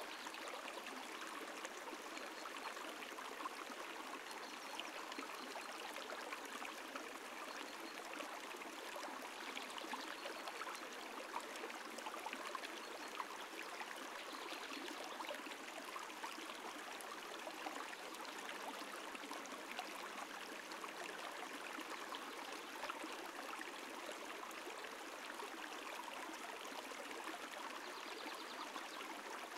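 Shallow stream running steadily over a rippled bed.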